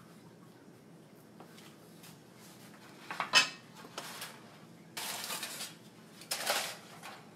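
Dishes and cookware clattering at the stove, with a sharp clink about three seconds in, then two spells of crinkling as aluminium foil is pulled off a dish.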